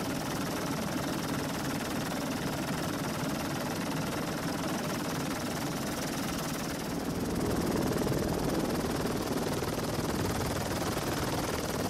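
Helicopter rotor and engine running steadily, heard from on board: a dense, even drone with the rotor's rapid beat underneath. It grows a little louder about seven and a half seconds in.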